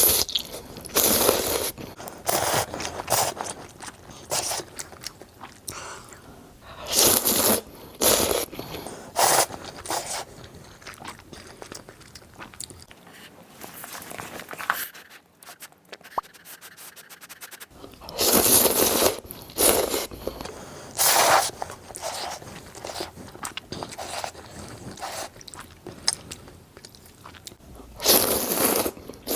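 Close-miked eating of luosifen noodles with tofu-skin rolls: loud bursts of chewing and mouth sounds every second or few, with a quieter stretch around the middle.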